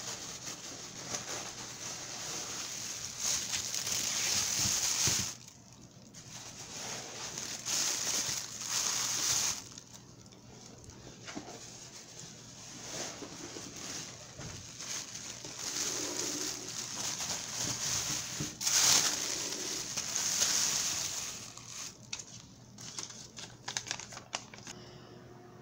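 Thin plastic produce bags crinkling and rustling as they are handled, in several bouts of a few seconds each with quieter gaps between.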